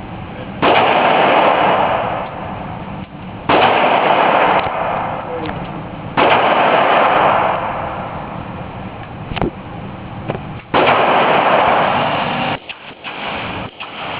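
A .500 S&W Magnum revolver fired four times, a few seconds apart. Each shot is very loud and is followed by a long rumble that fades over one to two seconds.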